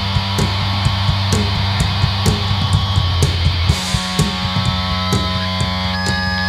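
Hardcore punk band playing live: heavily distorted electric guitar and bass over a steady drum beat of about two hits a second, with a cymbal crash a little under four seconds in. A high held whine, typical of guitar feedback, comes in near the end.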